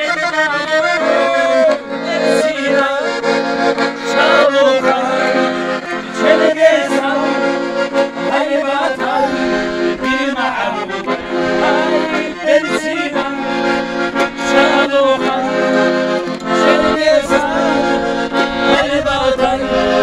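Accordion playing a lively traditional folk tune, with a man singing along.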